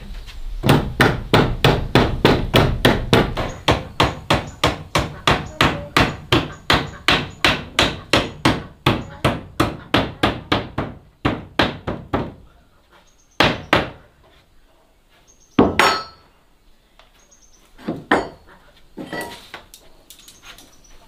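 Steel hammer striking a board on a wooden door frame: a fast run of blows, about four a second, for some twelve seconds, then a few single blows spaced apart.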